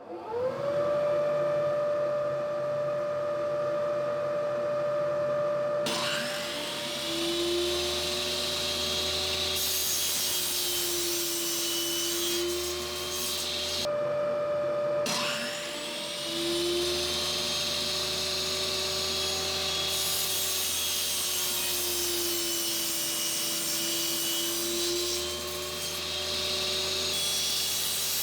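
Power tools working particle board. One motor spins up at the start and runs steadily throughout. A second tool starts cutting about six seconds in with a wavering pitch, stops briefly about halfway, then spins up and cuts again.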